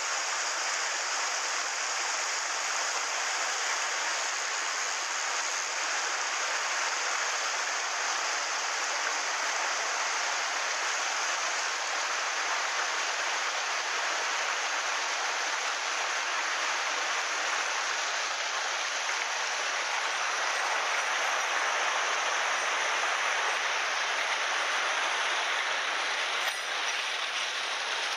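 Steady rush of a headwater stream pouring over boulders in small cascades.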